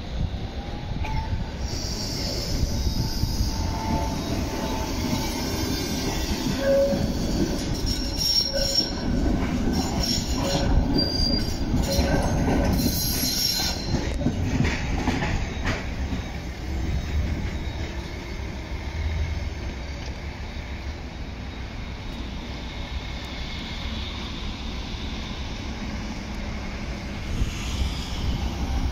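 Tram wheels squealing on curved track: several high, shifting squeal tones over the rumble of wheels on rail, fading out about halfway through and leaving a steady rumble of trams and traffic.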